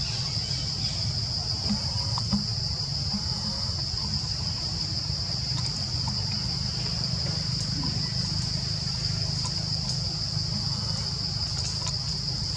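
Steady, high-pitched insect drone that holds without a break, with a low steady rumble underneath.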